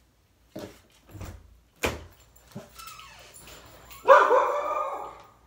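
A bedroom door being handled and opened, with a few knocks and latch clicks. A dog whines and barks, loudest about four seconds in.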